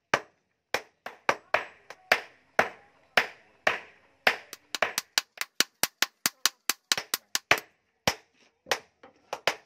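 Hammer blows on red-hot steel on an anvil: short sharp knocks at about two a second, quickening to about four a second in the middle, then slowing again.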